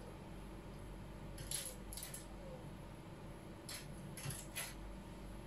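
Light metallic jingles, five short ones in two groups, over a faint steady hum.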